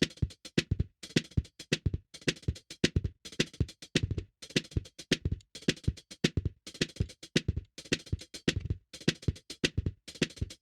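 Drum kit played in a messy, busy pattern and recorded through a single Audio-Technica AT2020 condenser microphone: clusters of quick, hard strikes with deep and bright hits together, broken by short gaps.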